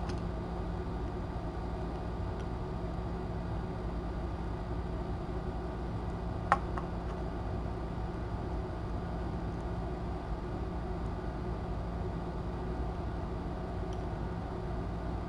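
Steady room hum and hiss with a faint electrical tone, broken once by a single sharp click about six and a half seconds in.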